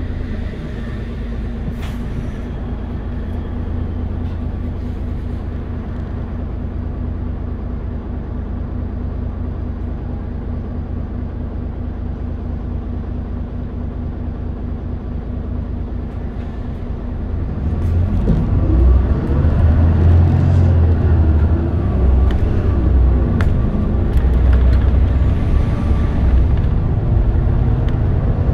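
Mitsubishi Fuso Aerostar city bus's inline-six diesel idling steadily while the bus is stopped, then pulling away about two-thirds of the way in: the engine gets louder and its pitch climbs, drops and climbs again as the bus accelerates through the gears.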